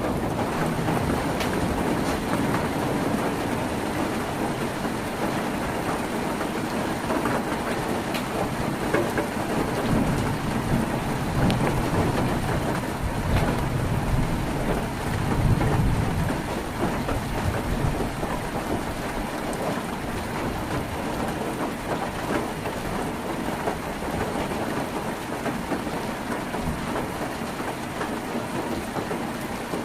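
Heavy rain falling on a tin roof: a steady hiss with scattered sharp drop ticks. Low rumbles of thunder swell through the middle, loudest a little past halfway.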